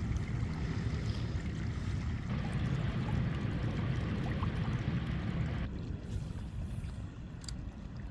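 River ambience from a drifting raft: a steady low rumble of water and wind on the microphone, with no other distinct sound. About six seconds in, the higher hiss abruptly thins out.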